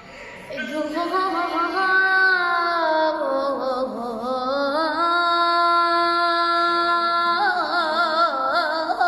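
A solo high voice singing unaccompanied, a drawn-out melismatic opening phrase of a religious chant (nasheed): it enters about half a second in, glides between long held notes with a wavering ornament, and breaks into quicker ornamented runs near the end.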